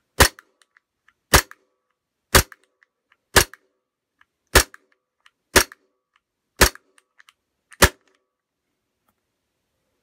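WE Tech G19 gas blowback airsoft pistol firing eight single shots at about one a second, each a sharp crack of gas release and the slide cycling.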